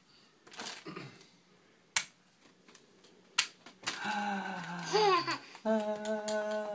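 Two sharp clicks, one about two seconds in and one about a second and a half later. Then a voice makes a short rising-and-falling sound and holds a long steady note, like a hum.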